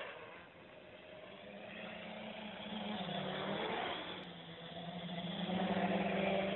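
Armattan CNC-355 quadcopter's four brushless motors and propellers humming in flight, the pitch shifting as the throttle changes and growing louder as it comes close overhead near the end.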